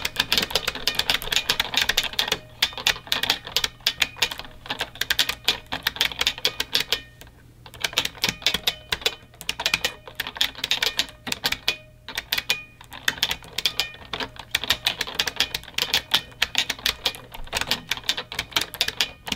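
Fast typing on a mechanical keyboard: dense runs of sharp key clacks, broken by a few short pauses.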